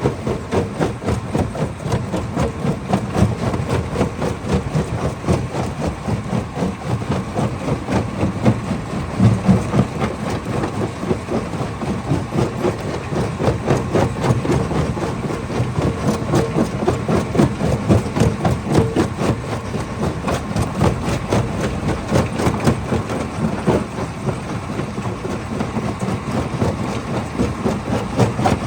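Stone crusher running under load: a steady low rumble with a rapid, unbroken clatter of knocks as rock is broken up inside the machine.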